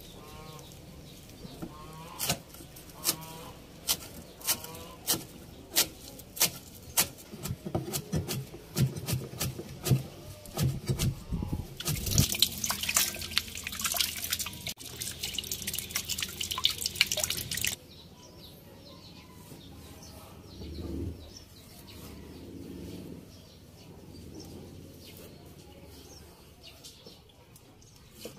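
Knife strikes on a wooden chopping board, about one every second, then water running from a tap into a stainless steel basin while raw pork is rubbed and washed by hand; the tap stops abruptly. Birds chirp in the background.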